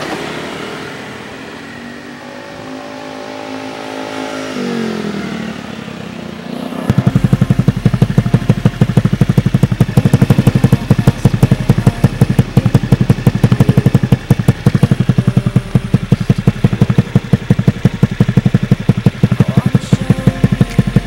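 Honda Vario 110 carburettor scooter's single-cylinder four-stroke engine through a NOB1 Neo SS aftermarket exhaust. It rises and falls in pitch over the first few seconds, then from about seven seconds in settles into a loud, rapid, even pulsing idle.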